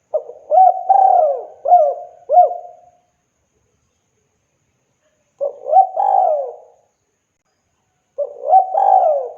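Spotted dove (tekukur) cooing: three phrases of several short, low coo notes that glide up and down. The first phrase lasts about three seconds, the second comes about five seconds in, and the third starts near the end.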